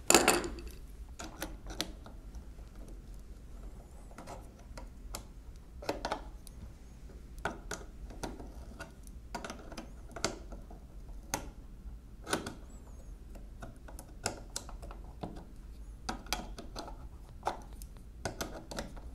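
Irregular small metal clicks and clinks of a wrench working a nut on the steel mechanism of a mechanical calculator as the nut is loosened, with one louder knock just at the start.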